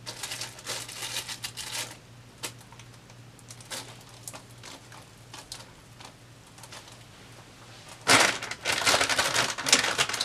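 Crinkling and rustling of plastic sheeting while a paint-poured canvas is spun on a hand-turned turntable, with scattered light clicks. A louder, longer stretch of dense crackling comes about eight seconds in and runs for about two seconds, over a steady low hum.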